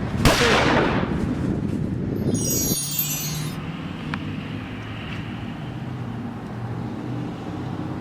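A sudden sweeping burst just after the start that fades within a second, then a bright, glittering chime sound effect about two seconds in. A low steady rumble runs underneath after that.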